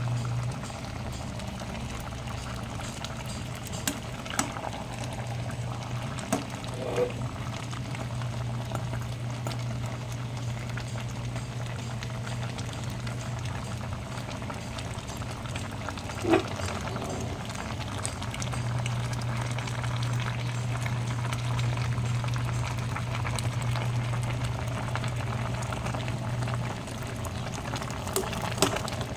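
A pot of kare-kare stew bubbling as it boils, over a steady low hum. A few sharp clicks or knocks come through now and then, the loudest about halfway.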